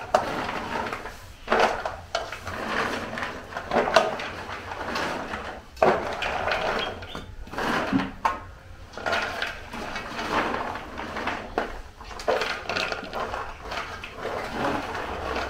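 Cocoa beans being stirred and scooped by hand in aluminium trays: irregular rattling, rustling and scraping of the beans against the metal.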